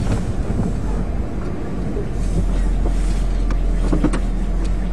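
Chrysler Sebring moving slowly, heard from inside the cabin: a steady low engine and road rumble with short squeaks from the suspension. The squeak comes from a dry upper control arm ball joint.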